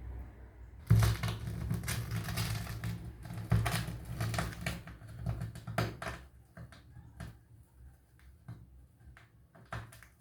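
Handling noise close to the microphone: a dense run of clicks, taps and rubbing that thins out to a few scattered clicks in the last few seconds.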